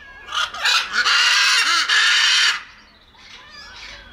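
Macaw parrot squawking: two short harsh cries about half a second in, then one long, loud, raspy screech of about a second and a half that cuts off sharply, followed by quieter chatter.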